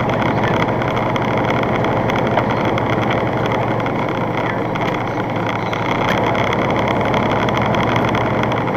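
Steady engine and road noise inside a truck's cab cruising at about 60 mph on a wet highway.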